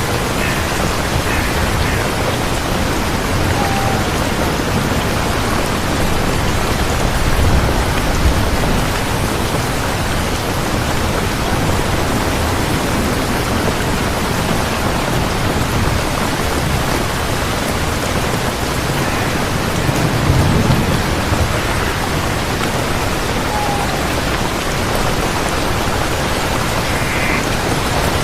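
Steady rain falling, with a low rumble swelling up twice, about eight and twenty seconds in.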